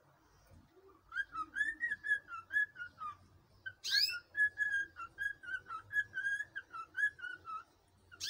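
Cockatiel whistling: two runs of short, clear whistled notes, broken about four seconds in by a sharp rising call.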